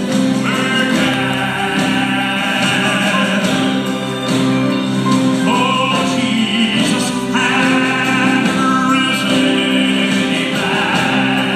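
Southern gospel male quartet singing in harmony, in phrases of long held notes.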